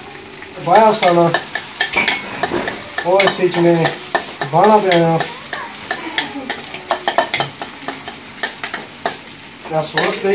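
Wooden spatula stirring spaghetti and sauce in an aluminium pan on a gas stove: scraping and clicking against the pan over a light sizzle. Several short pitched squeals stand out, about a second in, twice near the middle and once at the end.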